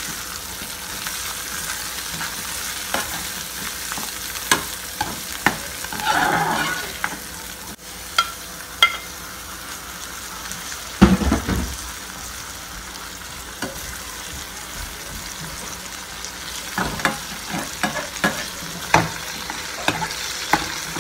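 Onion, garlic, ginger and chilli masala sizzling as it fries in a steel pan, stirred with a spoon that clicks against the pan. There is a dull thump about halfway through.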